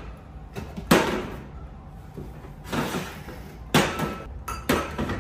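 Three sharp knocks of things set down on a hard surface, about a second in and twice near the end, with a brief rustle between them: household items being handled and put down.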